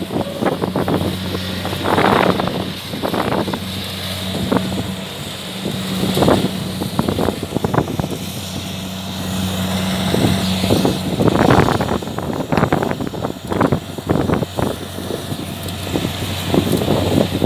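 Engine of a Kubota harvest machine running steadily at a constant speed, with irregular louder rushes of noise over it.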